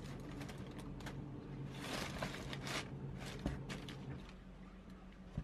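Handling noise from a patent-leather sneaker being turned in a cardboard shoebox: a few soft rustles and creaks, with a small click at the end, over a low steady hum.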